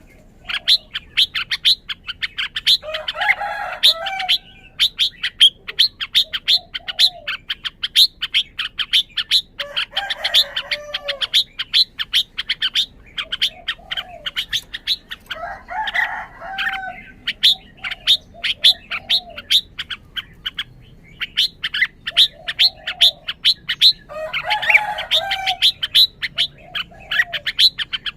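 Red-whiskered bulbul calling: a rapid run of short, sharp chirps, about three a second. Every few seconds it breaks into a short warbling song phrase.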